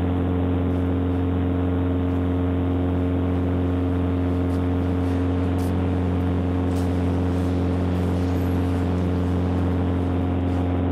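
Mooney M20E's four-cylinder Lycoming engine and propeller droning steadily, heard from inside the cabin in flight.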